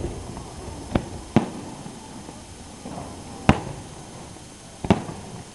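Aerial firework shells bursting: four sharp bangs, two close together about a second in, the loudest about three and a half seconds in, and one more near the end.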